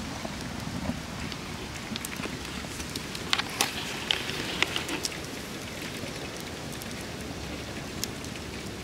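Split logs burning in an open-fronted wood stove, crackling with scattered sharp pops over a steady hiss; the pops come thickest about three to five seconds in and again near the end.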